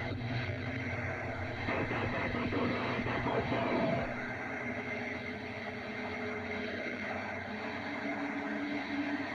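Dark, rumbling sci-fi space ambience: a scary-sound drone that swells from about two seconds in, drops off abruptly at about four seconds, then carries on steadily with a faint held tone.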